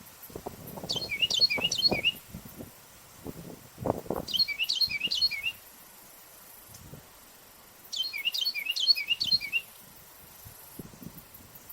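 Carolina wren singing: three bursts of quick whistled notes repeated several times over, each falling in pitch, a few seconds apart.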